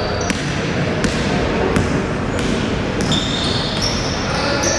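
Basketball game in a gym: a ball bouncing on the court over steady hall noise, with a few short high squeaks about three seconds in and near the end.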